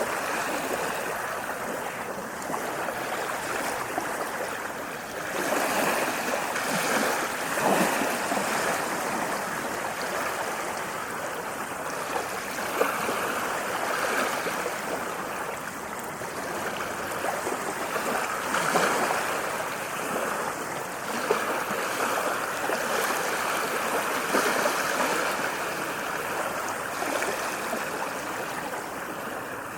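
Sea waves washing ashore in a continuous rush of water that swells and eases every few seconds.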